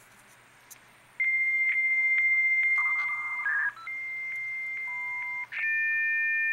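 A 56K V.92 internal dial-up fax modem's handshake through the laptop's speaker. About a second in, a steady high answer tone starts with faint regular clicks, is broken near the middle by a short warbling exchange of lower tones, then resumes. Near the end it changes to two steady high tones held together. This is a connection attempt that, the owner says, 'doesn't want to connect'.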